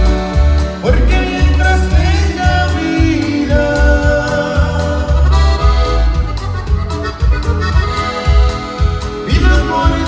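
A conjunto band playing live: button accordion and saxophone carrying the melody over electric bass and drums keeping a steady, bouncing beat of about two pulses a second.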